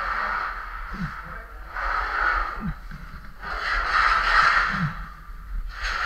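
Heavy, labored breathing of a person hauling steel rails, one breath about every two seconds.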